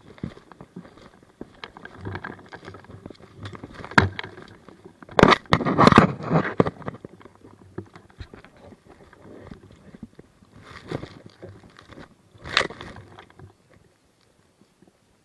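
Irregular rustling and scraping close to the microphone, with a sharp click about four seconds in and louder bursts of rustling around five to six seconds and near twelve seconds, dying away near the end.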